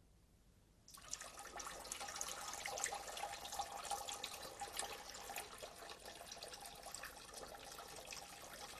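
A stream of liquid splashing steadily into a toilet bowl's water, starting suddenly about a second in: a man urinating.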